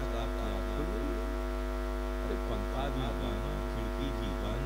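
Steady electrical mains hum through the public-address system. A man's voice comes through it in places, mostly in the second half.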